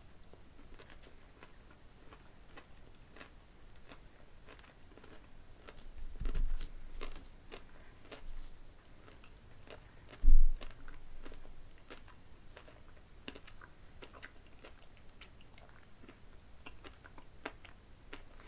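Candy-shelled M&M's (white-chocolate candy corn ones) being crunched and chewed close to the microphone, a steady run of small sharp crunches. Two low thumps break in about six and ten seconds in, the second the loudest.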